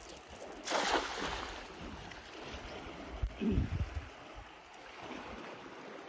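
A cast net lands on the river surface just under a second in, a short rushing splash as the weighted net hits the water. Steady wind and river noise follow, with a brief falling vocal sound a little past the middle.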